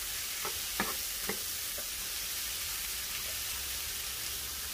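Sliced bell peppers, onion, jalapeño and tomato sizzling steadily in hot oil in a frying pan as they soften, stirred with a wooden spatula, which gives a few short scraping strokes in the first second and a half.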